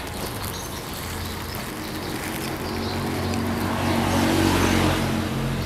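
A motor vehicle's engine running past. It grows louder to a peak about four seconds in, then begins to fade.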